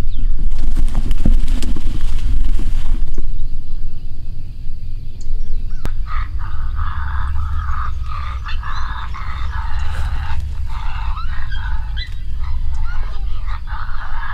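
Canine calls, high-pitched and broken into short repeated yips and barks, starting about six seconds in. Under them runs a steady low rumble.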